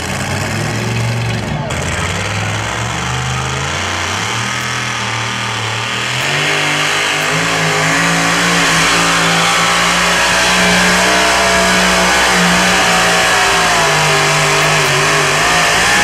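Pulling truck's engine revving up over several seconds, then held at high revs under load down the track, its pitch wavering.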